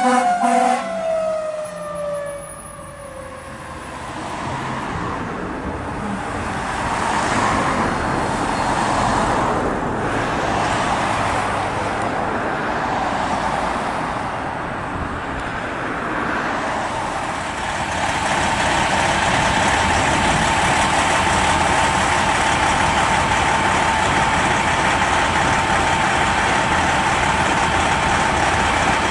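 Pierce fire engine's siren winding down in a falling glide over the first few seconds, then the fire engines running and passing with road noise, getting louder in the last third with a steady high tone over it.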